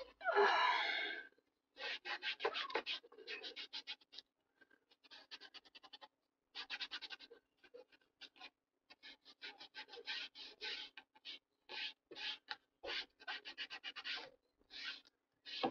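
Paper being rubbed and scraped in groups of quick back-and-forth strokes, as when a glued paper pocket is pressed down. It starts with one louder, squeaky stroke.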